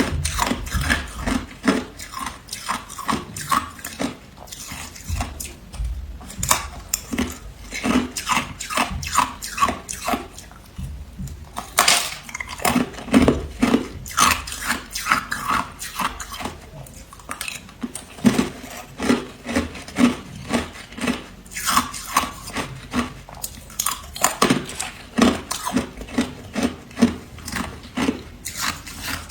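Crushed ice being bitten and chewed: an irregular run of sharp, crisp crunches, coming in quick clusters with short gaps between them.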